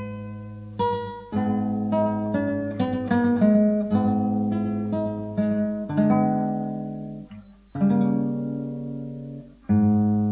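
Instrumental intro music: an acoustic guitar playing chords, each one struck and left to ring out and fade, with a short break about seven seconds in.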